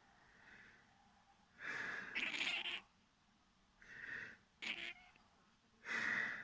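A house cat grumbling in annoyed, complaining calls, four of them, the first and longest about a second and a half in; the cat is scolding after being disturbed by sneezing.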